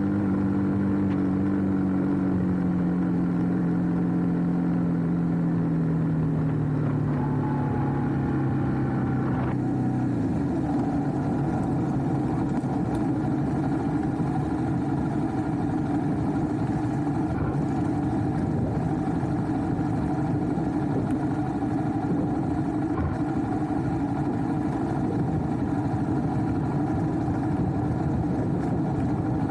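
Motorcycle engine running, its pitch falling steadily over the first ten seconds as it slows, then running steadily at a lower, rougher note.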